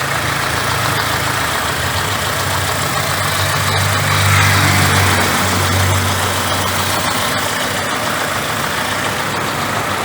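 Peugeot 207 1.4 engine idling steadily, a little louder for a couple of seconds midway.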